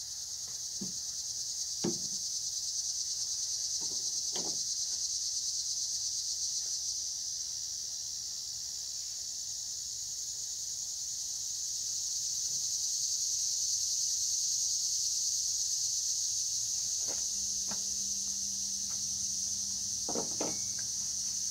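A steady, high-pitched chorus of insects that swells and eases, with a few faint clicks and light knocks.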